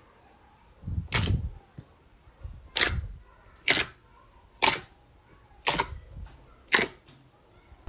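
Fingers pressing into thick slime, squishing it and popping trapped air pockets: six sharp pops about a second apart.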